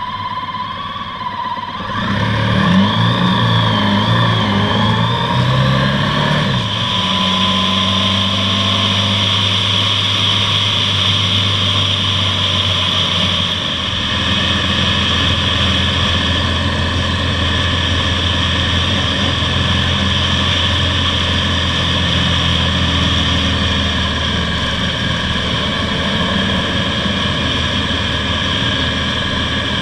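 Honda ST1300's V4 engine idles briefly, then accelerates away with its note rising through the gears. It then settles into a steady cruise under a constant rush of wind.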